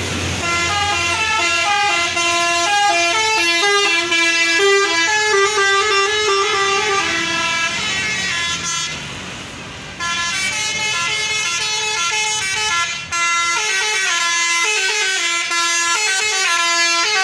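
A tour bus's multi-tone 'telolet' horn playing a quick stepping tune in two long runs, with a short break about eight seconds in.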